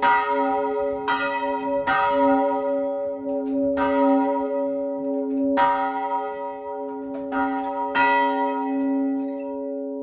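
Church bells of Hattula ringing, with clapper strikes coming irregularly every second or two over a sustained low hum. The last strike falls about eight seconds in, and the hum then rings on as the bells die away.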